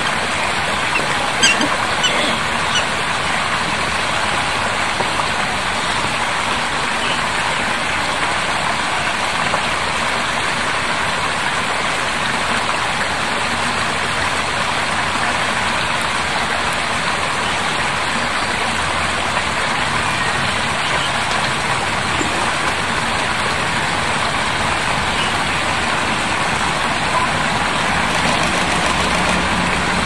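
Loud, steady rushing noise without any pitch, like running water, with a few short high chirps in the first two seconds.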